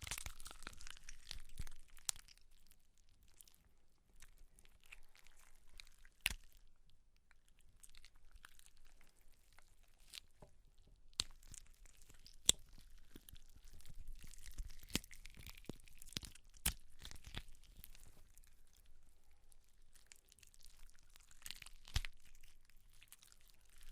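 Gore foley of flesh being torn and crunched: continuous wet tearing and crunching, broken by about half a dozen sharp cracks like bone snapping, the loudest about halfway through.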